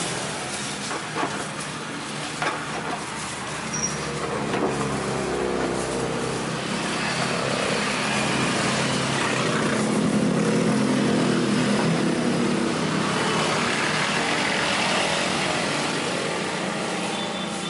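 Motor-vehicle traffic passing, with engine hum that swells around the middle and eases off again. A few light knocks in the first few seconds come from a knife on a cutting board.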